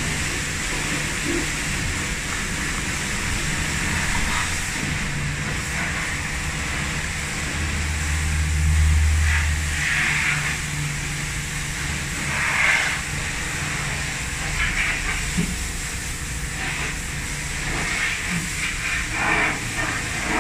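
A cloth rubbing over a leather sneaker in short scrubbing strokes, over a steady machine-like hiss and low rumble that swells for a couple of seconds near the middle.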